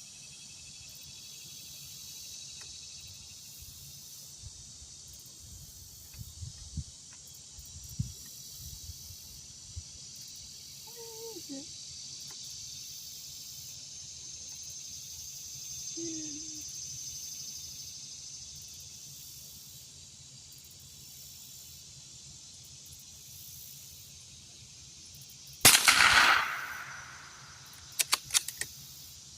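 One shot from a Ruger American .22 Long Rifle rifle near the end, a sharp crack with a short ringing tail, followed about two seconds later by a few quick clicks. Crickets chirr steadily throughout.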